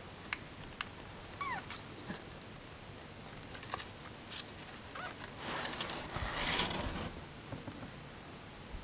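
Young kitten giving a short, thin, falling mew about a second and a half in, with a fainter one later. Its claws click and scrabble against the cardboard box, and a louder rustling scrabble comes around the middle.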